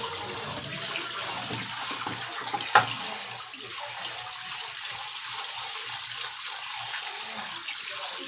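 Tap water running in a steady stream and splashing over hands and a milkfish being rinsed and rubbed clean in a bowl. A single sharp knock about a third of the way in.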